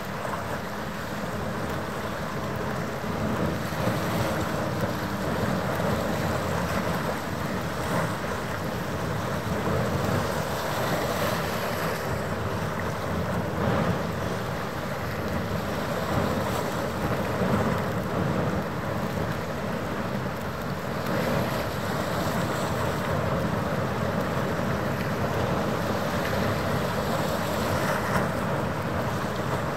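Wind gusting on the microphone over a steady rush of harbour water, with a faint steady hum underneath.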